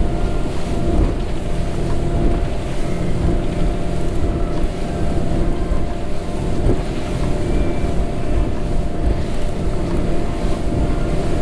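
Fishing boat running at speed on open water: a steady outboard engine drone with water rushing past the hull and wake, and wind on the microphone.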